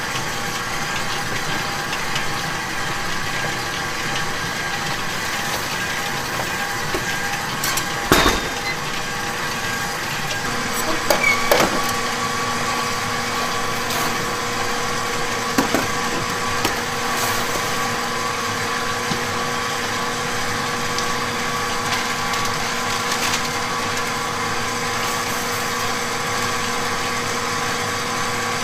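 Steady hum of bakery machinery with a few sharp metal knocks, the loudest about eight seconds in, as steel baking trays are handled and slid into a deck oven.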